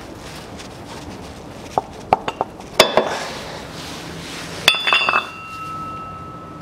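Loose steel parts clinking as they are handled and set down: a few light taps, then two sharp metallic clinks about two seconds apart, the second left ringing with a clear bell-like tone. The parts are likely the crankshaft pulley just removed from the engine and its bolt.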